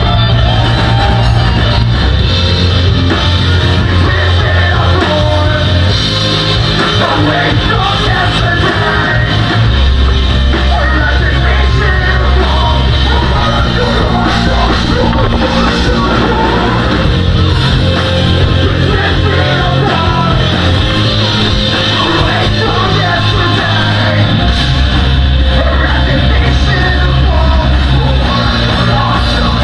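Live metalcore band playing loudly: distorted electric guitars, bass and drums, with yelled vocals over heavy low notes that change every few seconds.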